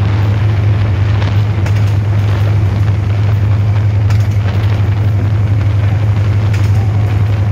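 Diesel-electric locomotive under way on a meter-gauge line, heard from the cab: a steady low engine drone with wind and track noise over it, and a few faint clicks.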